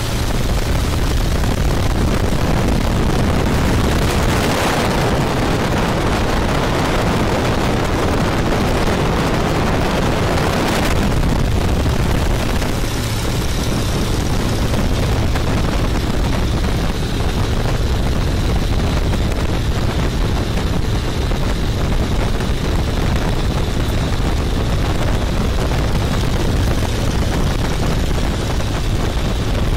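Open-cockpit biplane in flight, heard from the cockpit: the engine drones steadily under a loud rush of wind, which swells briefly about four seconds in and again around eleven seconds.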